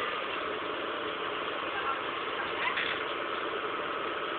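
Heavy diesel engine running steadily at idle, with faint voices in the background.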